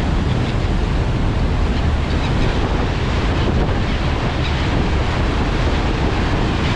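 Steady rush of churning water in a passenger ferry's wake, with wind buffeting the microphone and a low rumble underneath.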